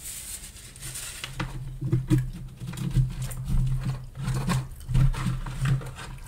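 Close-miked chewing of a mouthful of gravy-covered fries, with soft low mouth thumps about twice a second. In the second half, a plastic fork scrapes and picks up fries from a cardboard box.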